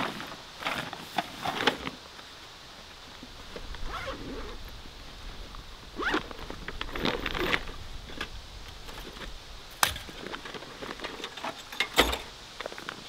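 Nylon and canvas gear rustling and scraping in irregular bursts as a backpack is unpacked and its bags are handled, with a couple of sharp knocks, about ten seconds in and near the end.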